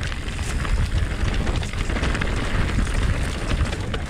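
Wind buffeting an action camera's microphone as a mountain bike rolls fast down a dirt singletrack, with tyre noise on the trail and frequent small rattles and clicks from the bike.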